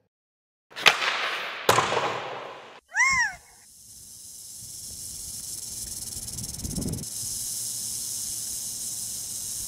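Sound-design title sequence: two sharp cinematic impacts with long decaying tails, then a single short high screech like a bird of prey's, then a steady airy hiss like desert wind that slowly builds.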